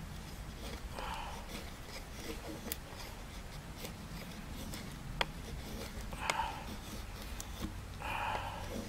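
Knife blade shaving curls down a wooden stick to make feather sticks: a few short scraping strokes, with a couple of sharp clicks as the blade meets the wood.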